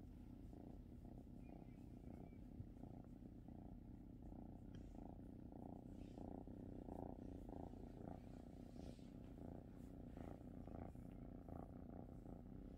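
A young cat purring quietly and steadily while being stroked on the head, the purr swelling and fading with each breath, roughly twice a second.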